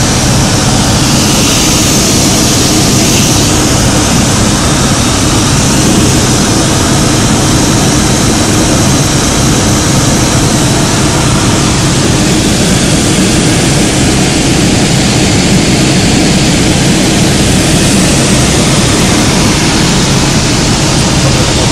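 Light single-engine propeller aircraft heard from inside the cockpit: the piston engine and propeller run at a steady, unchanging drone under a loud, constant rush of air.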